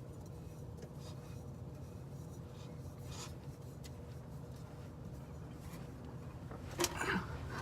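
Faint rubbing and scraping as a new oil filter is turned on by hand, with a sharp knock and a short scrape near the end, over a low steady hum.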